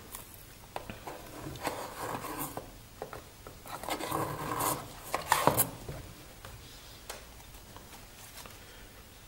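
Hands handling a watch presentation box: card-lined insert surfaces rubbing and scraping, with a few light taps, as the inner compartment is opened and handled. The handling dies down about six seconds in.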